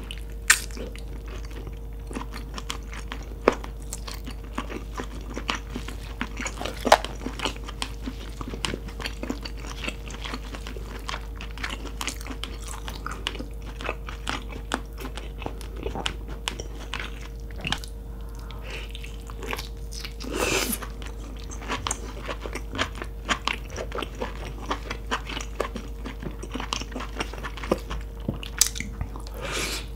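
Close-miked biting and chewing of boiled lobster meat, with many short sharp clicks and one longer, louder burst about two-thirds of the way through. A faint steady hum runs underneath.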